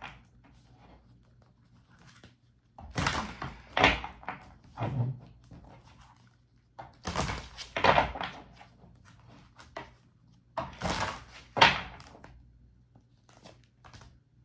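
A deck of tarot cards being shuffled in three short bursts of rapid card slaps and knocks, a few seconds apart.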